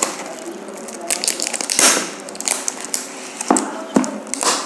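Plastic shrink wrap crinkling and crackling as it is worked off a plastic storage box, with irregular crackles and several sharper cracks.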